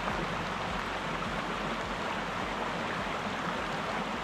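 Steady, even hiss of water noise outdoors at night, with a few faint ticks.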